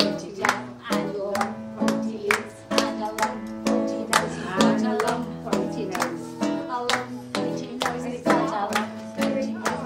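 Live guitar strummed in a steady rhythm, about two strokes a second, with voices singing along.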